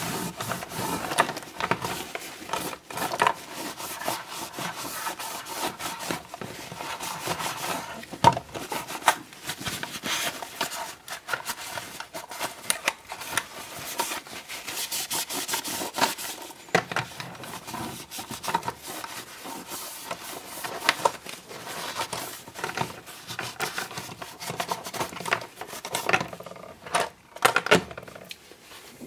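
Kitchen paper towel rubbed and wiped over the plastic body of a model locomotive to dry it after cleaning: a continuous scrubbing rustle with frequent small knocks and clicks as the model is handled, thinning out near the end.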